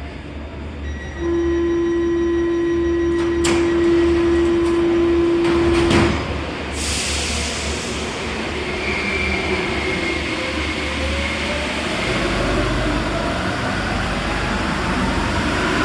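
Alstom MP14 metro train at a station. Its door-closing warning tone sounds steadily for about five seconds, and the sliding doors shut with a thud about six seconds in. The train then pulls away, its traction motors whining upward in pitch as it accelerates.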